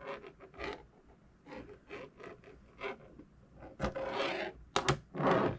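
Small neodymium magnets clicking and scraping against one another as they are handled, in an irregular run of short clicks and rubs, with two sharp snaps shortly before the end.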